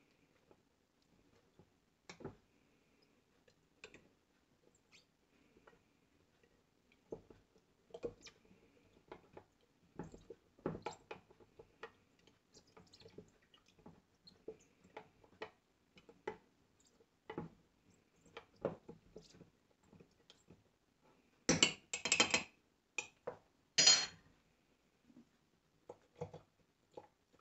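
Metal spoon scraping and clinking against the inside of a glass mason jar as ground chaga mushroom is stirred, in scattered irregular ticks. A few sharper, louder clinks come about three-quarters of the way through.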